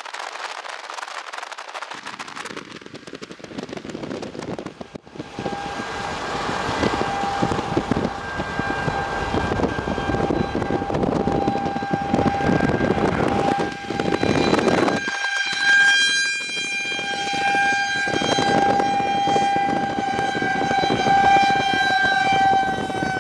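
Outdoor tornado warning siren sounding a single steady high tone from about five seconds in, sagging slightly in pitch near the end, over a loud rushing noise.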